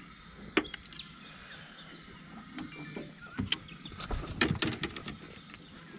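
Irregular knocks and taps in an aluminium boat as a small Murray cod flaps about on the floor and is grabbed at, with a quicker run of knocks in the second half.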